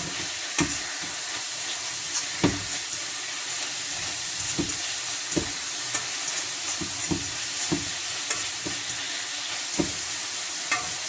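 Onions frying and sizzling in a hot pan with sauce just added, with a utensil knocking and scraping irregularly as they are stirred.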